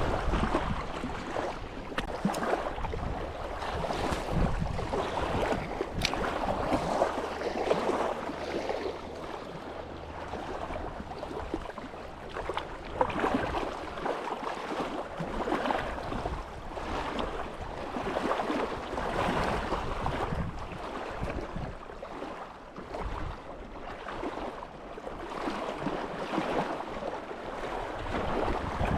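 Wind gusting over the microphone, with water lapping.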